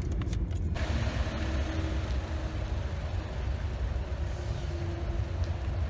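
Motor vehicle running: a steady low rumble, with a hiss of road noise joining it about a second in.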